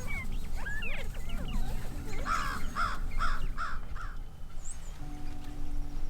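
A crow cawing five times in quick succession about two seconds in, after a scatter of shorter bird chirps.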